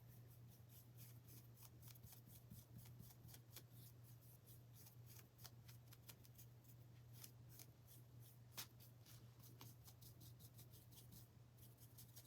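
Near silence: faint, scratchy ticks of a paintbrush working paint over a small wooden cutout, over a steady low electrical hum.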